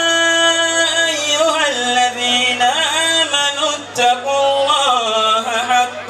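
A solo voice chanting an ornamented devotional melody. It holds one long note for about the first second, then moves into winding runs that rise and fall in pitch.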